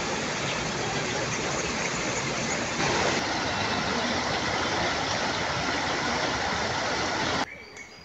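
Fast, shallow river rushing over rocks: a steady, loud rush of water that grows a little louder about three seconds in and cuts off suddenly near the end.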